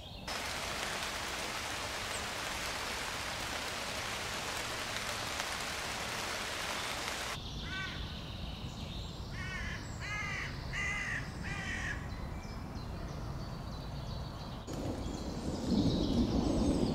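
Steady hiss of rain falling on foliage. After it, a crow caws about six times in quick succession, and near the end a louder low rumble sets in.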